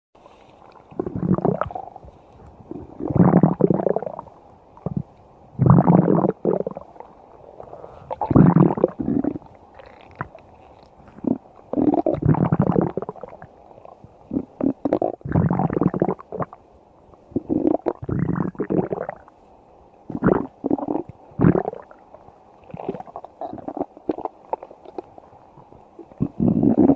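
Stomach growling in a long run of irregular rumbles, a new one every second or two. The earlier growls are drawn out, about a second each, and the later ones are shorter and choppier.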